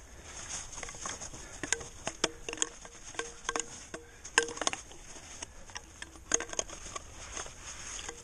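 Gloved hands brushing and digging fresh snow off rock to uncover holds, with irregular sharp scrapes and clicks against the rock.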